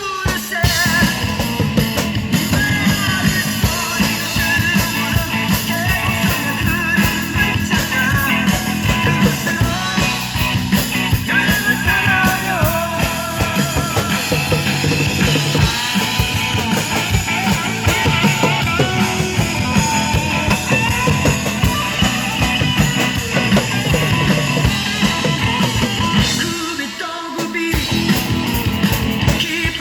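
An upbeat Korean rock song with a male singer and guitar, with a drum kit played along to it; the drum beat is steady and dense, and the music dips briefly near the end.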